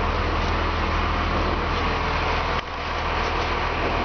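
A 1997 Ford F-series vactor truck running steadily while parked: a low engine hum under a loud, even rushing noise. It drops briefly about two-thirds of the way through.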